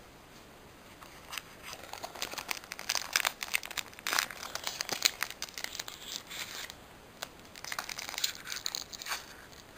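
A Pokémon trading card booster pack's wrapper crinkling and being torn open by hand: a rapid, irregular run of crackles that starts about a second in.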